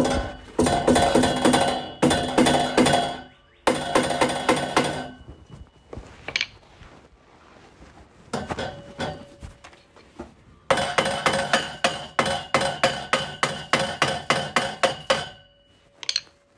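Mallet hammering a long bolt into the steel pole bracket of a basketball hoop frame, in quick runs of about four or five blows a second, with the hollow steel tubing ringing after the strikes. The blows pause for a few seconds near the middle, then a longer run follows.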